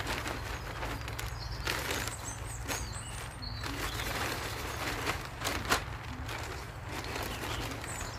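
Irregular knocks, taps and scrapes from handling plant pots and soil during repotting, with faint short high chirps and a steady low rumble underneath.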